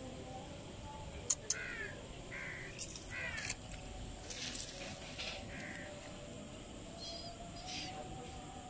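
Crows cawing in a run of short calls, with a couple of sharp clicks just before the calls start.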